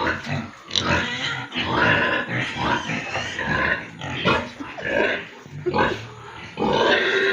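Pigs calling: a run of harsh, noisy cries one after another, with short pauses between them.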